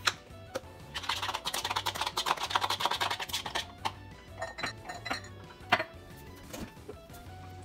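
Metal spoon clinking rapidly against a bowl as a mayonnaise sauce is stirred for about two and a half seconds, followed by a few separate knocks of utensils being set down, over background music.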